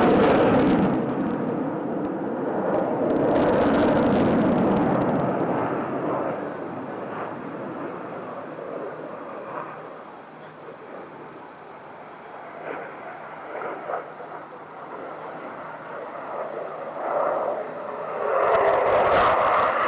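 Jet fighter engine noise, loud for the first few seconds, then fading to a lower rumble, and coming back loud suddenly near the end.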